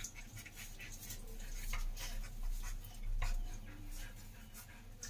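Litter of Doberman Pinscher puppies nursing and squirming against their mother: irregular soft scratching, shuffling and suckling noises, with the mother dog panting.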